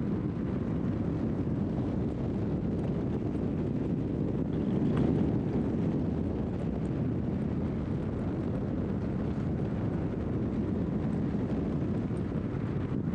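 Wind rushing over a microphone mounted on the outside of a 2013 Scion FR-S, mixed with the steady rumble of tyres and engine as the car drives at speed.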